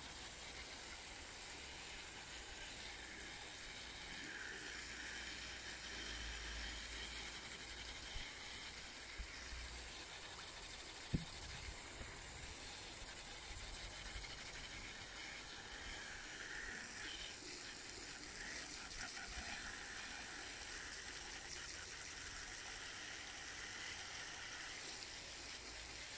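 Water jet from a hose nozzle hissing steadily as it flushes out an old French drain pipe. A few faint knocks, with one sharp click about eleven seconds in.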